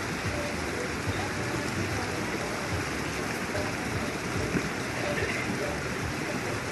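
Steady rush of running water at a swimming pool, with light splashing from swimmers.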